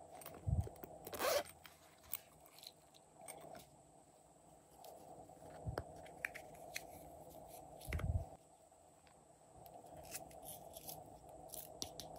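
Handling small silicone and plastic toy pieces: a zipper pulled open about a second in, then scattered clicks, taps and rustles, with a couple of soft low thumps.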